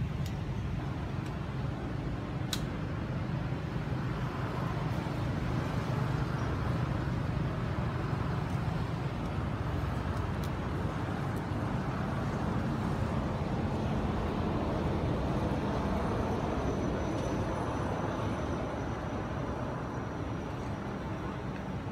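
Steady low background rumble that swells slightly and eases off near the end, with a single sharp click about two and a half seconds in.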